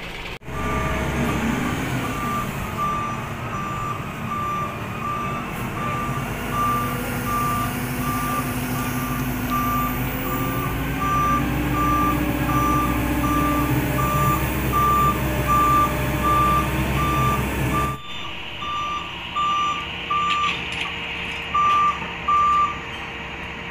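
Heavy truck's reversing alarm beeping steadily, about twice a second, over a diesel engine running low. The engine sound drops away abruptly about three-quarters of the way through, while the beeping carries on.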